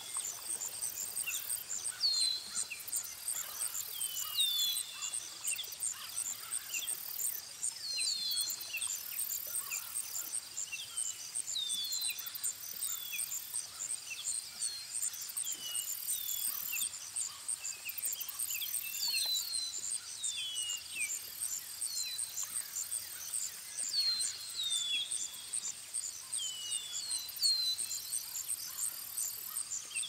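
Pond-side nature ambience: birds calling in short falling chirps, a few at a time every few seconds, over a steady, high, evenly pulsing insect trill.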